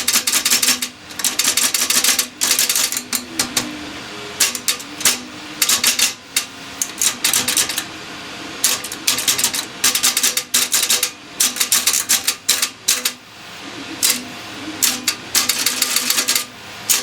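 Rapid metallic clicking and clattering in repeated bursts from an antique cash register's key and indicator mechanism being worked by hand, with parts sticking instead of dropping.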